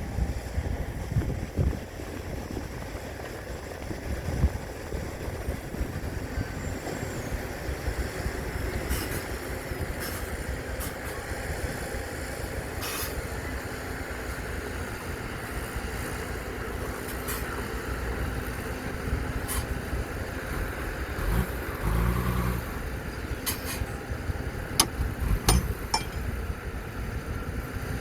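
Radio-controlled model dump trucks and bulldozer running, with a steady motor and engine noise, scattered sharp clicks and knocks, and a brief pitched rumble about three quarters of the way through.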